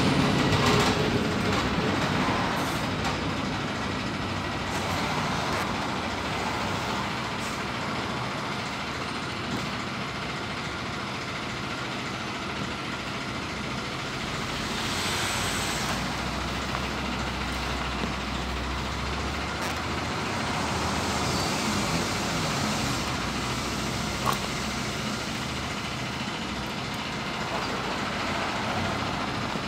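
PAZ 320414-14 city bus running, heard from inside the cabin: steady engine and road noise, easing off in the first few seconds, with a short hiss of air about halfway through and a single click later on.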